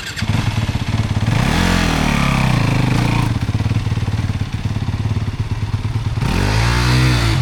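Dirt bike engine running close by, blipped up in revs twice, about a second and a half in and again near the end, with a steadier idle in between.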